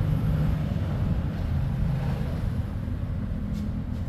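An engine idling with a steady low hum, and a faint click about three and a half seconds in.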